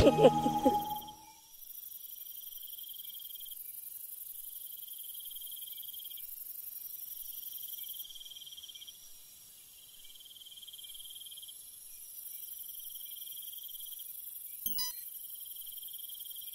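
A song's last notes die away in the first second. Then insects trill: a high trill that comes in stretches of two to three seconds with short breaks, over a steady high hiss. A short click near the end.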